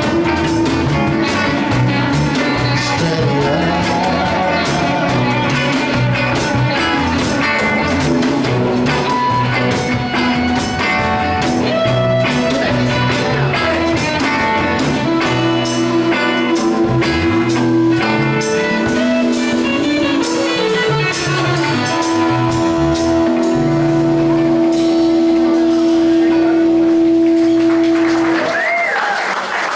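Live band playing the instrumental outro of a rock song, with guitar and drums, closing on a long held note. The music stops near the end and applause begins.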